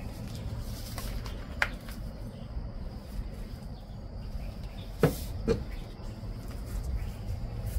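Paint roller on an extension pole rolling thick terrazzo floor paint over concrete, a low steady rumble with three short clicks, one about a second and a half in and two close together about five seconds in.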